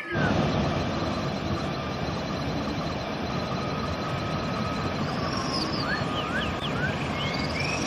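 River water rushing steadily, with songbirds calling over it: a held whistle and a faint high trill at first, then a run of quick rising chirps about five to seven seconds in.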